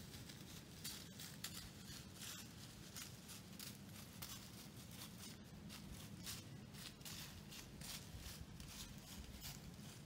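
Faint, irregular crunching and rustling in dry fallen leaves as a white-tailed deer walks and browses through them.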